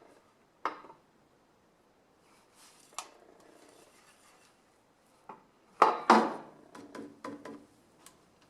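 Clinks and knocks of metal objects being handled: a few single clinks, then two loud knocks close together about six seconds in, followed by several lighter clicks.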